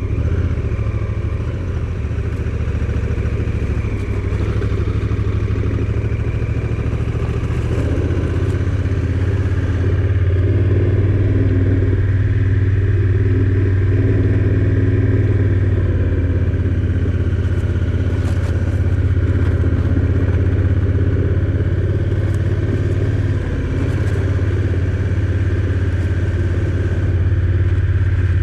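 Motorcycle engine running steadily while under way, a little louder from about a third of the way in.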